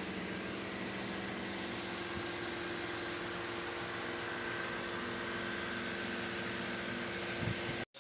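A car running steadily, a continuous even hum with a faint high whine.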